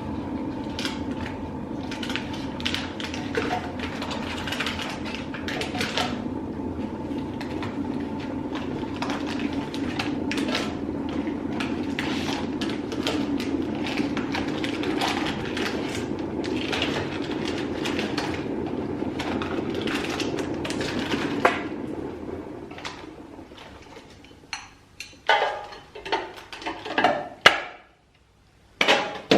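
Dishes and utensils clinking and knocking over a steady hum; the hum fades out about 22 seconds in, leaving a few separate knocks.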